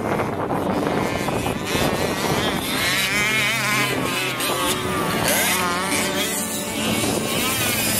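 Several 1/5-scale RC cars' two-stroke petrol engines running and revving, their pitch rising and falling repeatedly as the cars accelerate and back off.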